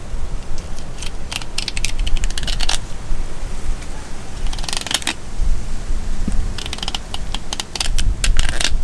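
Fillet knife cutting along the side of a blackfin tuna, with quick runs of crisp clicking and crackling as the blade works through the skin and flesh, three times over.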